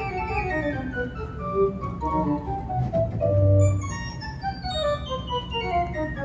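Rieger tracker pipe organ playing quick descending runs on the swell, with the 1 1/3-foot nineteenth stop drawn. A louder low note sounds a little past halfway.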